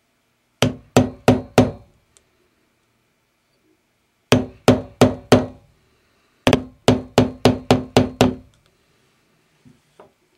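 A yellow mallet strikes a metal leather-stamping tool into a leather earring blank laid on a wooden stump block. The blows come in three bursts, four, then four, then six, about three a second, each with a short woody ring.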